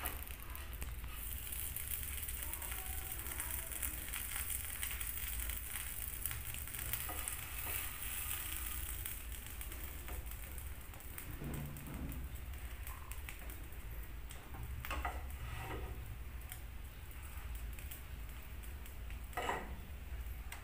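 Sandwich frying on a low flame in a nonstick pan, a steady soft sizzle. A spatula scrapes or knocks against the pan briefly a few times, about halfway through and near the end.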